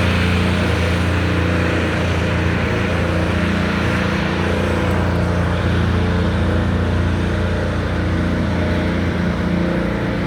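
A motor running steadily at one constant pitch, a low hum with an even drone above it, over a background of outdoor noise.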